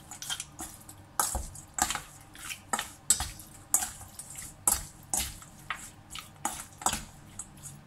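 Metal spoon clinking and scraping against a stainless steel mixing bowl as cut pork ribs are stirred in their seasoning, in irregular strokes about one or two a second that stop near the end.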